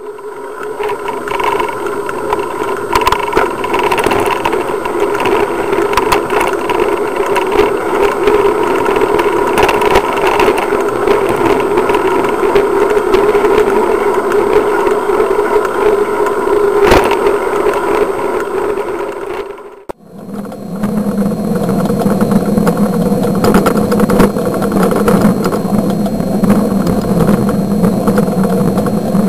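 A vehicle driving, with steady engine and road noise picked up by a camera mounted low near the road. The sound drops out briefly about two-thirds of the way through, then resumes as a lower hum.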